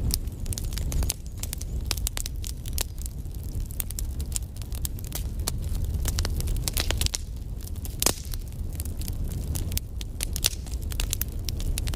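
Fire crackling, with dense irregular pops and snaps over a steady low rumble; one louder snap about eight seconds in.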